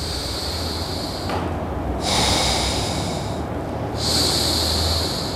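A man breathes slowly and audibly through one nostril at a time during nadi shuddhi alternate-nostril breathing: three airy nasal breaths, each about a second and a half, with short gaps between them.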